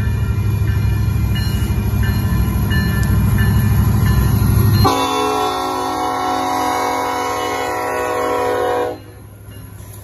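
Music with heavy bass for the first five seconds, then a Union Pacific diesel locomotive's air horn sounds one long multi-note chord for about four seconds and cuts off abruptly. The train's low rumble follows.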